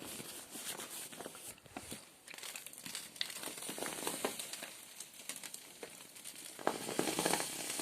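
Dry grass and twigs of a campfire crackling and rustling, with irregular sharp little pops, as the fire is being lit.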